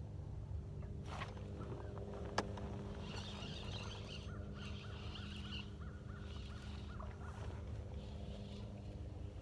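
Steady low hum of a boat motor, with a single sharp click about two and a half seconds in.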